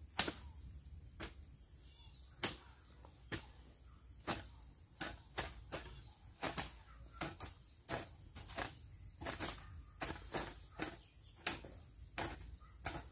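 Hand hoe (enxada) blade striking the soil while weeding, in short, irregular strikes of about one to two a second that come more often after the first few seconds.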